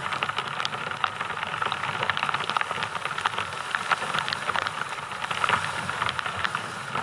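Small waves breaking and washing up a shingle shore: a steady hiss of surf full of small crackles and splashes, with boots splashing as someone wades into the water.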